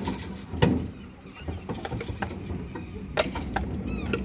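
Tram horse's hooves clip-clopping in irregular sharp strikes while it pulls a horse-drawn tram along its rails, over a steady low rumble.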